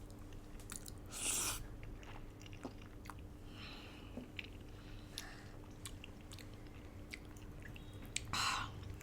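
Close-miked chewing and small wet mouth clicks of a person eating duck noodle soup, with two louder hissing bursts, about a second in and near the end.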